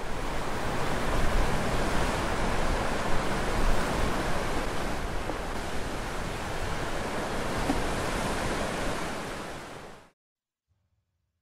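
Ocean surf breaking on a rocky shore: a steady rush of waves that fades out about ten seconds in.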